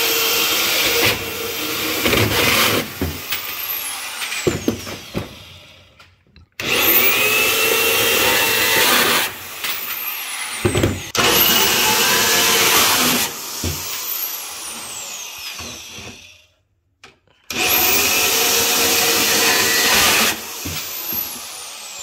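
Portable bandsaw cutting sheet-metal channel, three runs: the motor spins up, the blade rasps steadily through the metal, and the saw winds down with a falling whine each time the cut ends.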